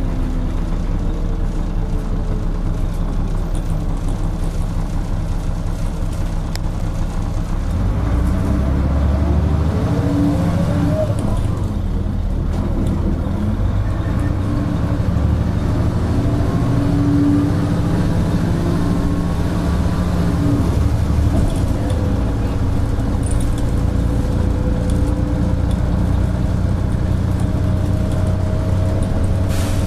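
Interior of an Ikarus-bodied DAF single-deck bus on the move: the diesel engine runs loudly under road noise, its note stepping up about eight seconds in and changing again later, with rising whines as the bus gathers speed.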